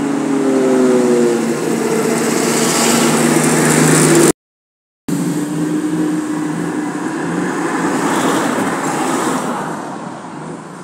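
Road traffic passing close by: engine and tyre noise of vehicles going past at speed, with an engine note falling slightly in pitch early on. The sound cuts out briefly about four seconds in and fades near the end.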